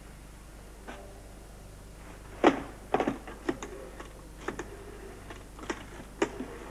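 Desk telephone being picked up and a number dialled: a clatter as the handset comes off the cradle, then a run of irregular clicks and knocks from the dial and handset.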